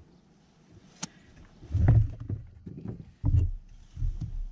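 Handling sounds in a fishing kayak: a sharp click about a second in, then a series of low, heavy thumps and bumps.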